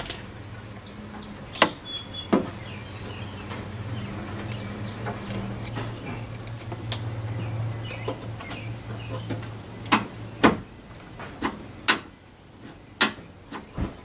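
Scattered sharp clicks and knocks of hands working the plastic door handle mechanism and its linkage inside a 2016 Toyota Camry's front door. A steady low hum runs underneath and stops about ten seconds in.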